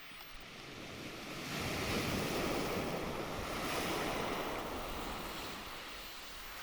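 Ocean surf: a wave breaks and washes up the shore, swelling about a second and a half in and easing off again near the end.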